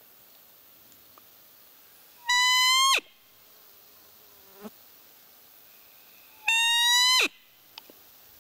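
Roe deer call blown twice, imitating a doe's plaintive call to lure a rutting buck: two loud, high-pitched squeaks of under a second each, about four seconds apart, each dropping sharply in pitch at the end.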